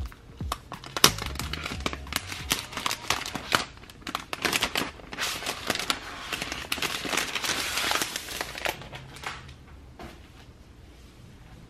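Thin plastic protective wrap crinkling and crackling as it is peeled off a new Apple Magic Keyboard, with handling clicks throughout. The crinkling is densest about six to eight seconds in and dies away near the end. Quiet music plays underneath.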